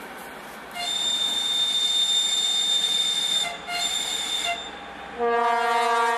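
Horns of the Soviet-built M62-type diesel locomotive T 679 1168. A shrill high whistle sounds for about three seconds, breaks briefly, then gives a shorter blast. About five seconds in, a deep low horn starts and is held.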